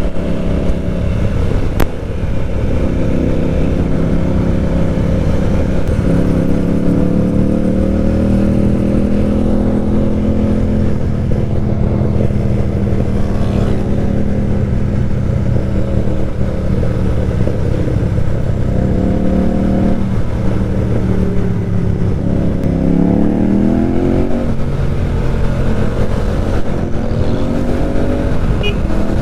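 Motorcycle engine and exhaust heard on the move from the bike. The engine note climbs as it pulls through the revs about six seconds in and again near the end, and holds steady at cruising revs in between, over constant road and wind noise.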